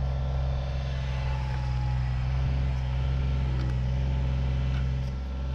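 Kubota BX25D compact tractor's three-cylinder diesel engine running steadily, with a faint thin whine above the engine note.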